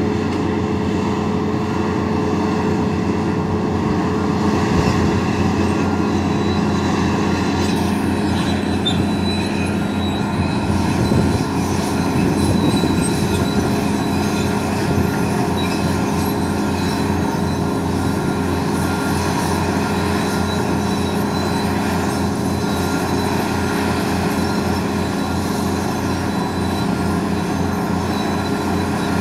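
Several large hydraulic crawler excavators working together: diesel engines running under load with hydraulics working the booms and grabs, a steady mechanical drone with a high whine over it.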